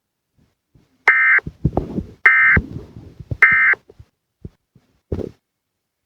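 Emergency Alert System end-of-message signal: three short, identical digital data bursts, each a fraction of a second long and about a second apart, marking the end of the tornado warning broadcast. A few dull thumps fall between and after them.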